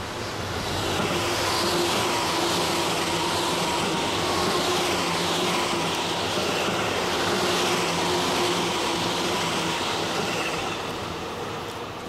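Tobu 8000 series electric multiple-unit train passing at speed: wheels on the rails and a steady motor hum under the running noise. It grows louder over the first couple of seconds, holds while the cars go by, and fades near the end.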